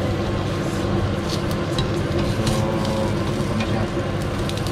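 Vegetable slices sizzling on a hot ridged grill pan, with scattered crackles and light clicks of metal tongs as they are turned, over a steady low hum.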